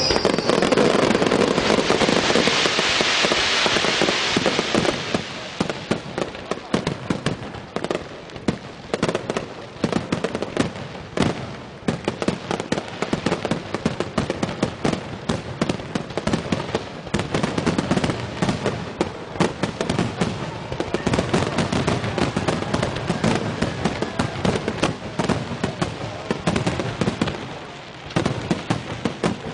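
Fireworks set off from drum cans on the sea, going off in a dense barrage: a loud hissing rush for the first few seconds, then rapid, continuous crackling and popping.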